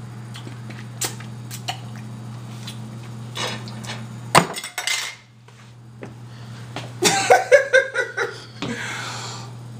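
A metal spoon clinking and knocking against a jar in a few separate strikes, the loudest about four and a half seconds in. About seven seconds in there is a quick run of short throaty vocal sounds from the man, who is struggling to get the peanut butter down.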